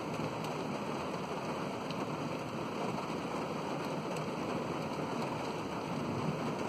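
Steady rain falling in a thunderstorm, an even hiss with a few faint ticks of individual drops.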